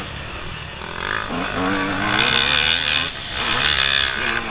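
Yamaha YZ125 motocross bike's 125 cc two-stroke single revving hard under throttle. Its pitch climbs from about a second in, dips briefly near three seconds, and climbs again.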